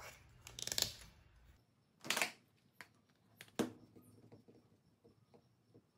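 Hands fitting a wooden soldering-iron handle onto the iron's metal body and turning a screwdriver in its screw: two short scraping rustles, the louder about two seconds in, then a sharp click and a few light ticks.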